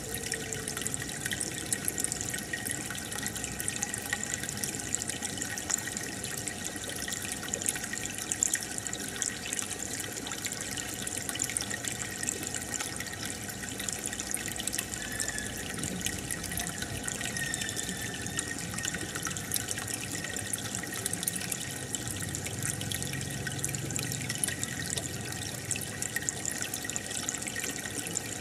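Aquarium water bubbling and trickling steadily, with a fine crackle of air bubbles breaking at the surface and filter water running.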